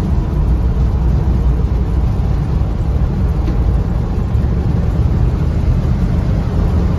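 Old Dodge pickup truck driving at steady road speed, heard from inside the cab: a loud, even low rumble of engine and road noise.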